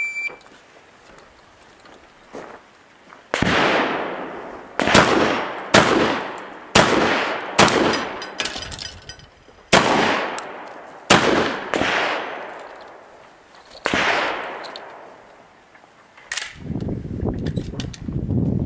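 A shot timer beeps once at the start, then a long gun fires about ten shots spaced roughly a second apart, each shot trailing off in a long echo. Near the end a rustling of handling noise follows the last shot.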